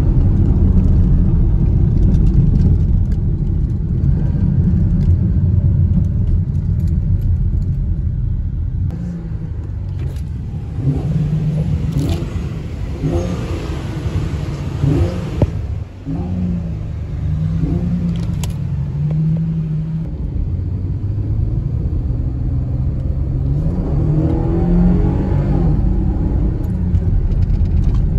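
Muffler-deleted exhaust of a 2014 Chevrolet Camaro's 3.6-litre V6, heard from inside the cabin. It drones steadily at cruising speed, then gives a series of short rev blips while the car is stopped, and near the end it rises in pitch as the car accelerates.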